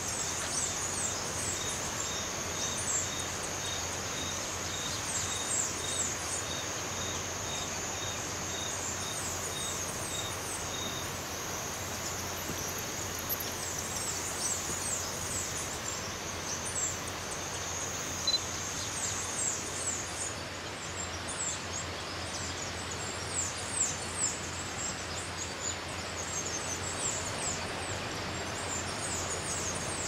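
Tropical forest ambience over an even hiss. A steady high insect-like drone stops about two-thirds of the way through, many short high chirps come and go, and a faint pip repeats about twice a second for the first third.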